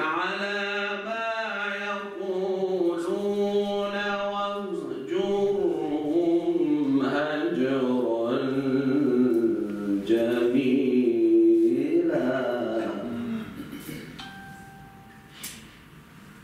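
A man's voice chanting Quranic recitation in long, melodic phrases, holding and bending each note, and fading out about three-quarters of the way through. A faint brief tone and a single click follow near the end.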